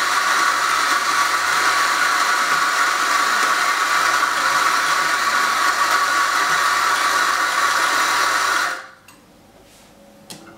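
Coffee-making equipment running with a loud, steady hiss for about nine seconds, then cutting off.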